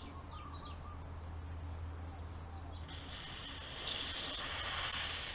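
Aerosol spray can hissing through its extension straw into a small carburetor jet, starting about three seconds in and cutting off sharply; the spray comes through atomized.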